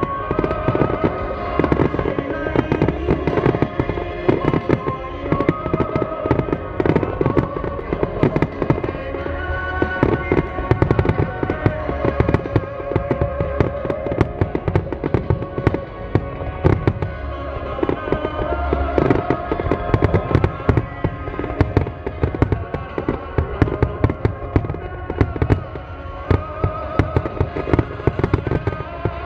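Starmine fireworks barrage: shells bursting in a dense, rapid run of cracks and booms, several a second throughout, with music playing underneath.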